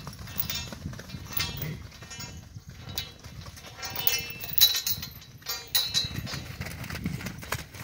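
Horses moving about in a group, with irregular hoofbeats and thuds and a couple of short, sharp high-pitched sounds a little past halfway.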